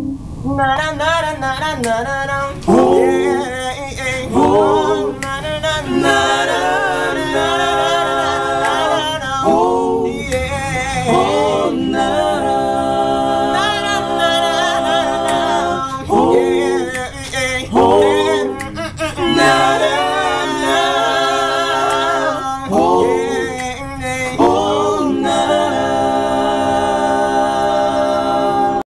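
Male vocal group of six singing a Christian song a cappella in close harmony: several voices holding sustained chords, with no instruments.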